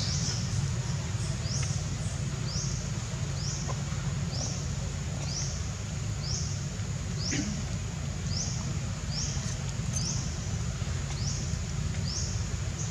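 A short, high, rising chirp repeating evenly, a little more than once a second, over a steady low rumble.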